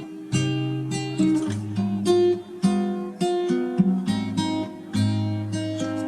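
Intro music played on plucked acoustic guitar, a bright tune of picked notes over a bass line.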